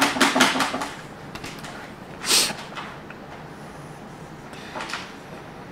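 A person's sharp breath through the nose, loud and short about two seconds in and fainter again near five seconds. It follows a rapid run of clicks, about ten a second, that stops about a second in.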